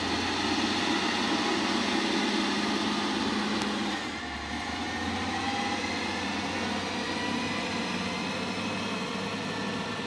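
Motor grader's diesel engine running steadily as the grader drives along the road, with a low steady drone. The level drops slightly about four seconds in.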